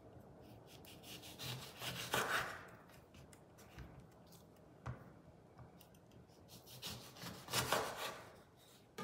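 A kitchen knife slicing through whole oranges on a wooden cutting board: two cuts, each a scraping rasp lasting about a second, with a single light knock on the board between them.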